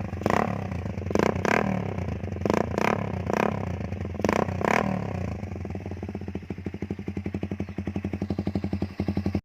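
Motorcycle with a Daeng aftermarket exhaust pipe, silencer insert still fitted, idling and blipped quickly about eight times, often in pairs, over the first five seconds. It then settles into a steady, evenly pulsing idle.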